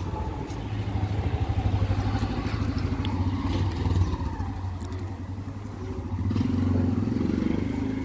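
A motor vehicle's engine running with a low pulsing hum, getting louder for a couple of seconds near the end.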